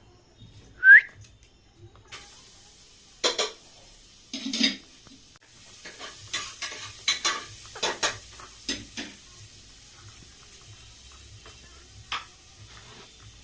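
A parrot gives one short, loud rising whistle about a second in, followed by an irregular run of sharp clicks and scrapes over a faint hiss.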